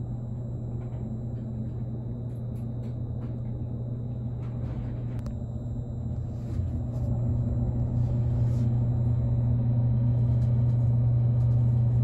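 Steady low hum inside a JR Kyushu 787 series electric train car standing at a station. It grows louder about seven seconds in as the train starts to pull away, with a few faint clicks.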